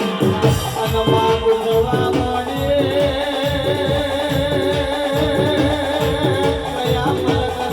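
Live Gujarati folk devotional music with no vocals: a fast, steady drum beat under a held melody line.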